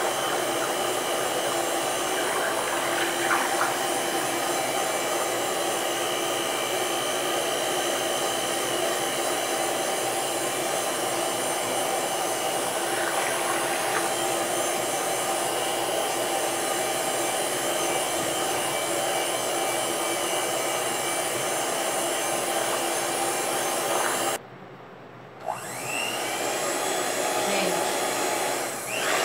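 Handheld electric mixer running steadily, its beaters churning thick liquid soap batter of oil, lye and vinegar as it is beaten toward trace. Near the end it cuts out for about a second, then starts again.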